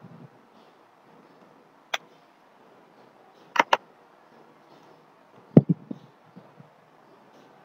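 Computer mouse clicks: a single sharp click about two seconds in, then a quick double-click about a second and a half later. Near the six-second mark comes a short cluster of dull desk knocks, the loudest sound here.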